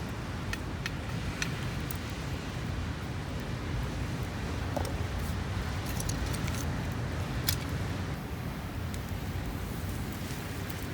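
Wood campfire crackling, with scattered sharp pops, over a steady low outdoor rumble.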